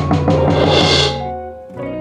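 Music with a quick, steady drum-kit beat over sustained bass and synth tones; the beat thins out briefly near the end.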